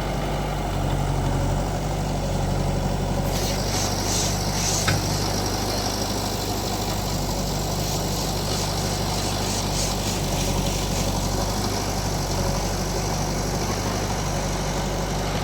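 Heavy diesel machinery engine running steadily. A high rushing hiss joins in about three seconds in, with a single sharp knock shortly after.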